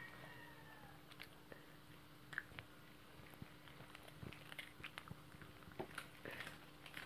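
A Shih Tzu chewing a dog biscuit: faint, irregular crunches and clicks.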